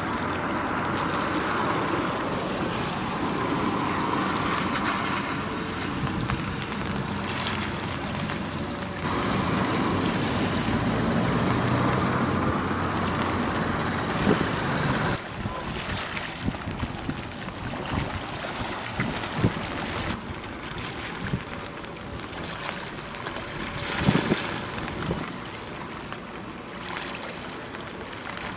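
Wind buffeting the microphone over choppy harbour water, with waves lapping. It is a rough, steady rush with no clear engine note, and its level shifts abruptly a couple of times.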